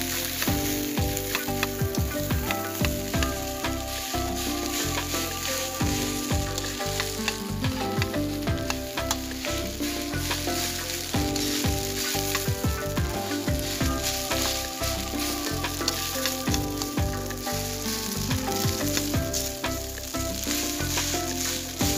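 Rice frying and sizzling in a metal wok while a metal spatula scrapes the pan and turns it over again and again, with short scrapes and knocks throughout.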